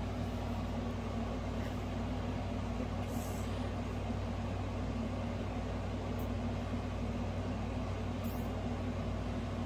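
Steady low mechanical hum from a running machine, even in level throughout, with a couple of faint brief hisses over it.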